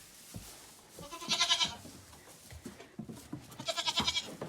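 Female goats bleating: two loud, wavering bleats, the first about a second in and the second about three and a half seconds in, with a few soft knocks between.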